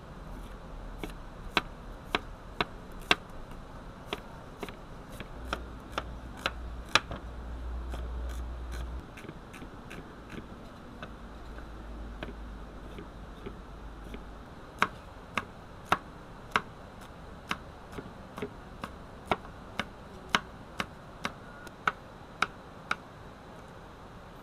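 Cleaver chopping shallots and other vegetables on a wooden cutting board: sharp knocks of the blade striking the board, about two a second, in two runs with a sparser stretch between.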